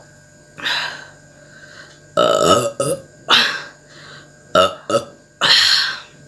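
A woman burping loudly after gulping cold fizzy Sprite: a long burp about two seconds in and a shorter one near five seconds, with loud breathy sounds between them.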